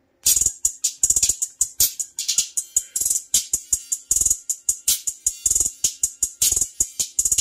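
Music with a fast, steady beat played through an unmounted Rockford Fosgate Prime R1T-S car-audio tweeter, starting about a quarter second in. The sound is thin and treble-heavy, the hits brightest at the top with little bass.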